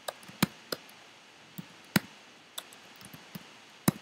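Computer keyboard keys clicking during typing: about eight separate key presses at uneven intervals, a few struck harder than the rest.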